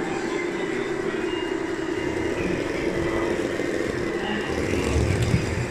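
Radio-controlled model construction machines running: a steady motor hum, with a low rumble building about four and a half seconds in.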